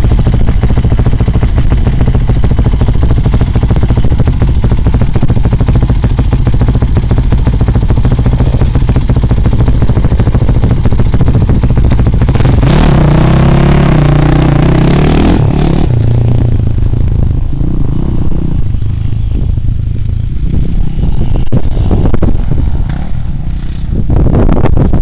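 Yamaha YZ426F four-stroke single-cylinder motocross bike engine idling close by, then revved hard from about twelve seconds in with rising pitch as it pulls away, after which its sound falls off as the bike moves off.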